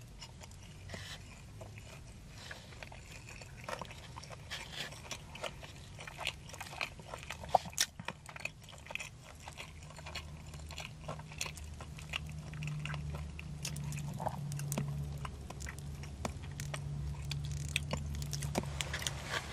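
A person chewing a sauced, breaded buffalo chicken tender, with soft smacks and small scattered mouth clicks. A low steady hum comes in about halfway.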